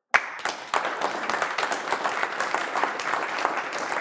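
Audience applauding, many hands clapping at once; it starts suddenly and keeps a steady level.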